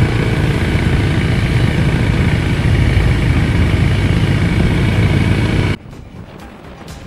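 A vehicle engine running on the move, a steady low rumble with road or wind noise. It cuts off abruptly about six seconds in, leaving something much quieter.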